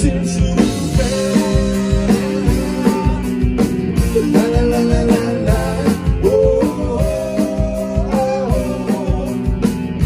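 Rock band playing live: a drum kit keeps a steady beat under guitars and a sustained, bending melody line.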